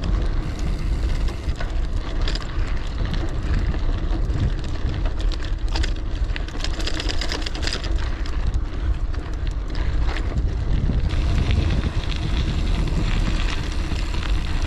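Wind buffeting the microphone over the rolling noise of a gravel bike's 650b Terravail Rutland tyres on a dirt trail, crackling with loose grit and small knocks. About eleven seconds in the crackle stops and gives way to a smoother rush as the bike coasts onto pavement.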